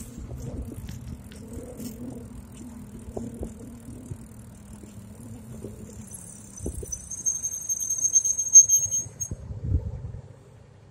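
Bicycle rolling along with low road and tyre noise, then its brakes give a high-pitched squeal for about three seconds, starting about six seconds in, as it slows to a stop.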